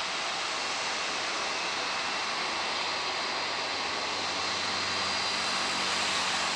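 Airbus A320's twin IAE V2500 jet engines running at low taxi power as the airliner turns onto the runway: a steady hiss with a faint high whine, swelling slightly about four seconds in.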